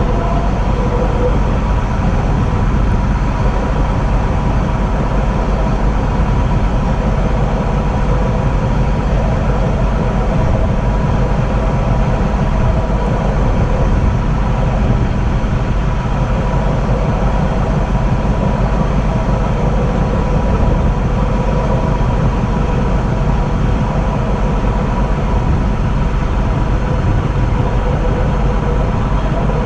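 Steady running noise of a moving electric train: a constant low rumble with a faint steady high tone over it.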